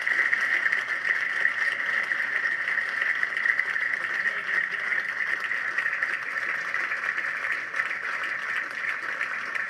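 Audience applauding steadily in a hall, a dense even clatter of many hands.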